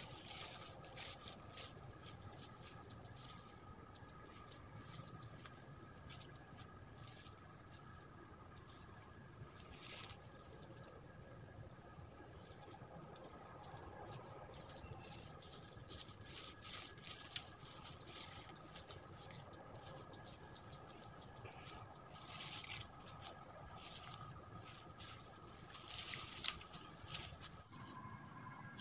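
Insect chorus, a steady high-pitched trilling, with a higher buzzing part that switches on and off every second or two. A few rustles and knocks from handling the grass near the end.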